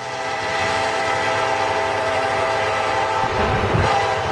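Pachuca's small tourist train, heard as a steady, many-toned sound that fades in from silence, with a low rumble joining about three and a half seconds in.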